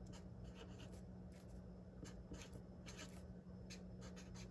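Felt-tip marker scratching across paper in short, irregular strokes while capital letters are written, faint over a low steady hum.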